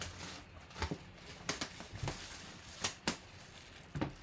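Hands handling a sealed cardboard box on a table: a scattered series of sharp crinkles and taps, about six in four seconds.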